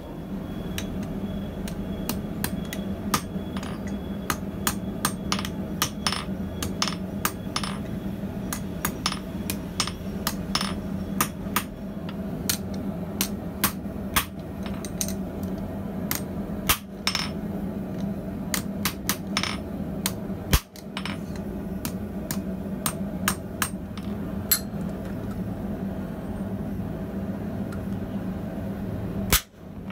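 Hand hammer striking a red-hot steel tong jaw on an anvil: a long run of sharp blows at an uneven pace, roughly two a second, over a steady low hum.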